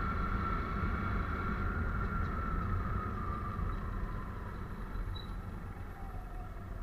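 A Hero Splendor 100 cc motorcycle's single-cylinder engine running steadily on the move, with road noise. A steady high whine fades out about halfway.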